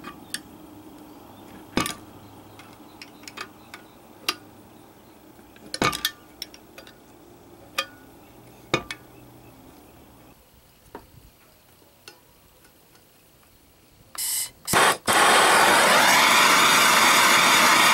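Metal tools and bolts clinking and tapping while a homemade puller is bolted to an Evinrude 9.9 outboard's lower unit. About 14 seconds in come two short bursts of noise, then a loud steady machine noise starts and keeps on.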